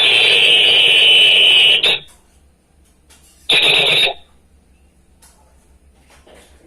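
A hand whistle blown as a signal: one long blast of about two seconds, then a short blast about three and a half seconds in.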